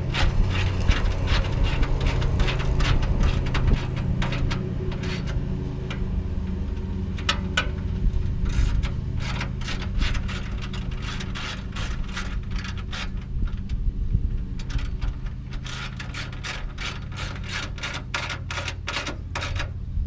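Hand ratchet wrench clicking in quick runs while radiator mounting hardware is worked and tightened, over a steady low rumble.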